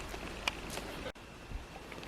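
A kitten hiccuping: one short, sharp hic about half a second in.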